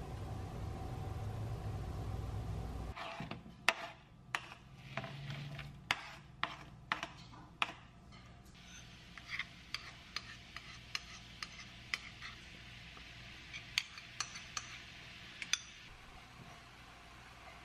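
Kitchen cookware and utensils knocking and clinking: a steady rush cuts off about three seconds in, then comes a run of sharp knocks for several seconds. After that come lighter, scattered clicks and taps as sliced onion and carrot are tipped from a cutting board into a nonstick frying pan.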